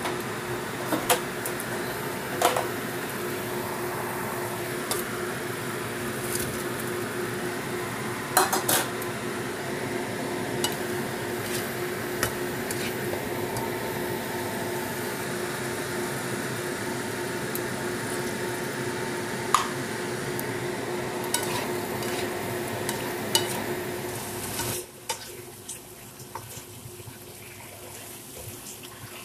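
Vegetables and fish pieces sizzling in a nonstick wok while a spatula stirs and scrapes them, with sharp clicks and knocks of the spatula against the pan every few seconds and a steady hum underneath. About 25 seconds in the sound drops to a quieter sizzle.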